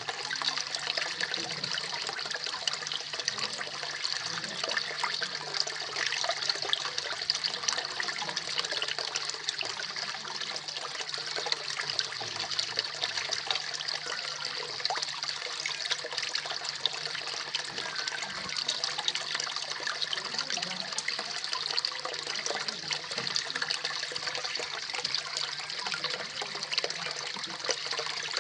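Small waterfall splashing steadily into a koi pond, a continuous patter of falling water.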